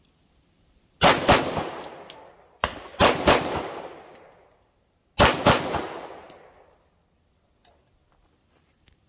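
9mm pistol shots fired in three quick groups of two or three, about a second, two and a half and five seconds in. Each shot cracks sharply and leaves a long fading tail.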